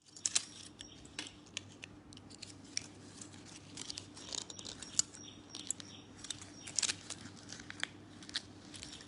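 Irregular small clicks and crinkling rustles, a few sharper than the rest, over a faint steady hum.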